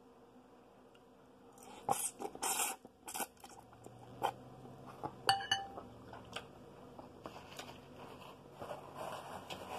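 Slurping a forkful of hot ramen noodles, in short bursts about two seconds in. A fork clinks against the glass bowl with a brief ring, followed by soft chewing.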